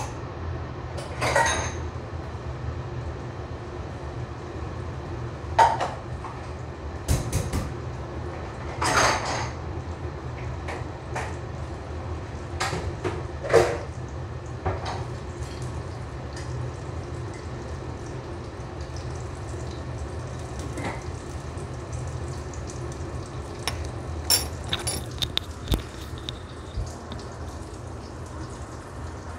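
Shallots and garlic frying in a little hot oil in a wok, with scattered crackles and pops of spitting oil over a steady low hum.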